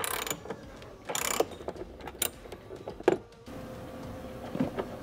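A 10 mm socket and wrench working the bolt of a Toyota Tacoma's door limiter strap: short metallic clicks and scrapes in about four quick bursts over the first three seconds, then a faint steady hum.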